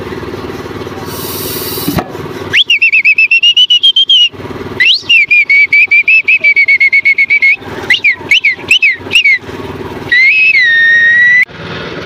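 Loud, shrill whistling in fast trilled runs: two long warbling runs starting about two and a half seconds in, then a handful of short separate chirps, and a final held note that dips slightly in pitch.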